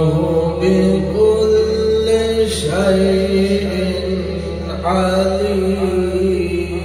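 Man's voice reciting the Qur'an in the melodic, drawn-out tajweed style, long held notes gliding up and down in phrases, amplified through a public-address microphone and loudspeaker.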